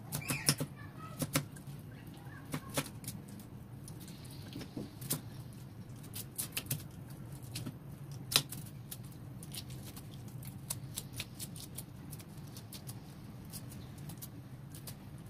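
A small knife scraping the scales off a raw fish on a wooden chopping board: quick, irregular scrapes and ticks with an occasional knock of the blade on the board, the loudest about eight seconds in.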